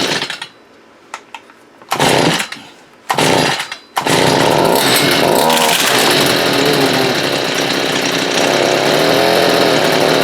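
Two-stroke gas string trimmer engine, freshly repaired carburetor and primer pump, being pull-started: it fires in short bursts that die out, then catches about four seconds in and keeps running at high speed, its pitch wavering.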